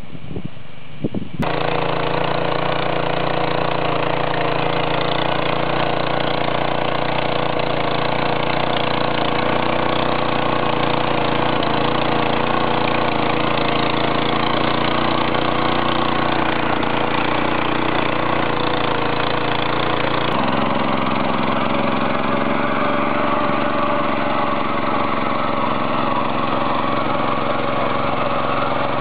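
Small engine of a walk-behind power tiller running steadily while it pulls a screw ridger through the soil to earth up a crop row. It cuts in abruptly about a second and a half in, and the engine note changes abruptly about two-thirds of the way through as a different tiller takes over.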